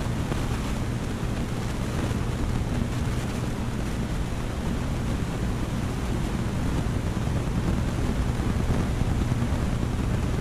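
Aquarium filter and aeration running: a steady rush of bubbling water over a constant low hum.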